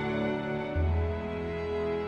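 Slow, calm background music of long held notes, with a new low note coming in a little under a second in.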